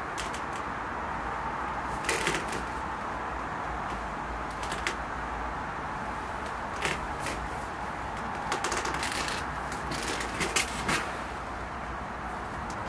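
Scattered light knocks and clicks, a handful spread over several seconds, over a steady background hum.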